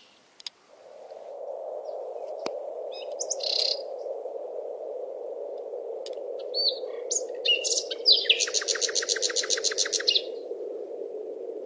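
Birds chirping and calling over a steady low rushing sound. Near the end, a fast trill of rapid repeated notes, about eight a second, lasts about two seconds.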